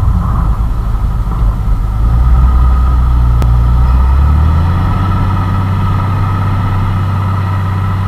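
Massey Ferguson 6499 tractor's six-cylinder diesel engine running steadily under load while pulling a six-furrow plough, its low rumble easing about halfway through.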